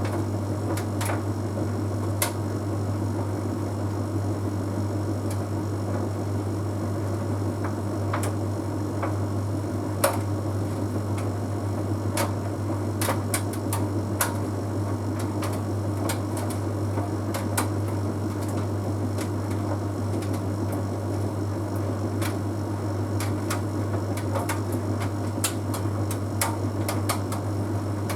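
Bosch Series 6 heat pump tumble dryer running mid-cycle: a steady low hum with a rumble from the turning drum, and scattered light clicks at irregular intervals.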